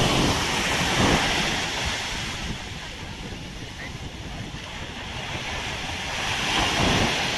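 Surf breaking on a sandy beach, the rush of water swelling at the start and again near the end, with wind on the microphone.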